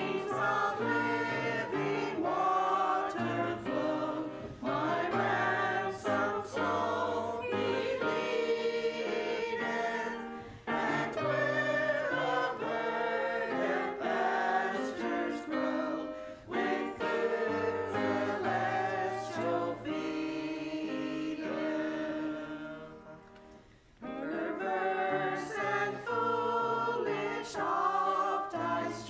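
Church choir singing, phrase after phrase; the singing dies away into a brief lull about four-fifths of the way through, then starts again.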